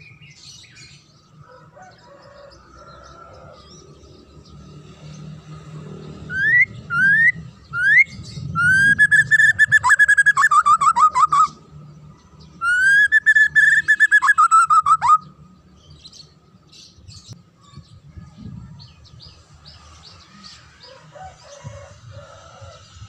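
White-rumped shama singing: three short rising whistles, then two loud phrases, each a held clear whistle that breaks into a quick run of falling notes. Quieter chirps come before and after.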